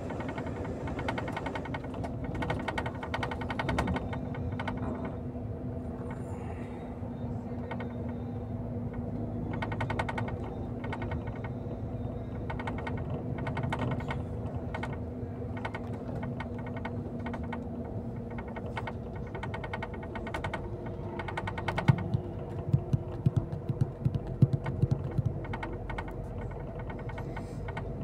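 Vehicle on the move heard from inside the cabin: a steady engine hum with irregular clicking rattles, and a run of louder knocks and jolts about three-quarters of the way through.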